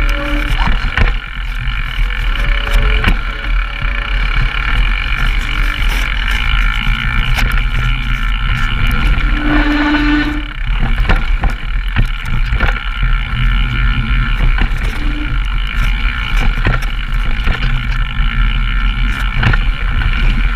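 Downhill mountain bike descending a rough trail, heard from the riding cameras: constant rattling and knocking of the bike over the ground and a steady buzz, over heavy wind rumble on the microphones.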